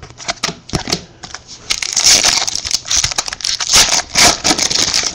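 Trading cards flicked through by hand, a few sharp snaps, then from about two seconds in the foil wrapper of a card pack crinkling loudly as it is handled.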